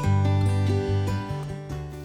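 Background music played on acoustic guitar, strummed chords, fading down near the end.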